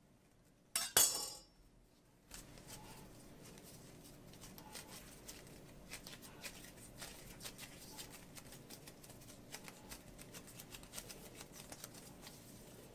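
A brief clink about a second in, then hands squeezing and pressing a piece of fresh pasta dough, a faint soft rustle with small clicks.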